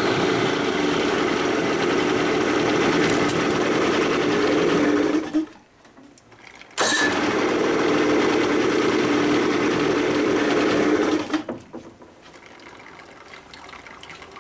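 1988 Evinrude 55 hp commercial two-stroke outboard engine running steadily. The sound cuts out suddenly about five seconds in and comes back just as suddenly a second and a half later, then dies away shortly after eleven seconds.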